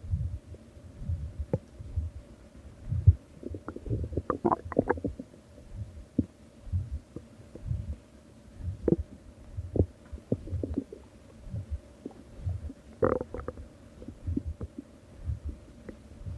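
Stomach growling: irregular low rumbles and gurgles with short bubbly pops, busiest about four seconds in and again around thirteen seconds.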